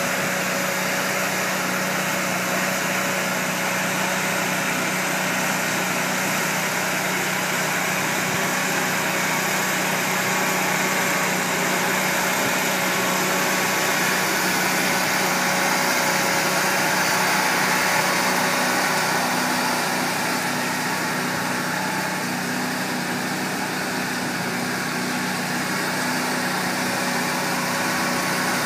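Engine of a Somero S-840 laser screed running steadily with an even hum as the machine drives across a rebar mat.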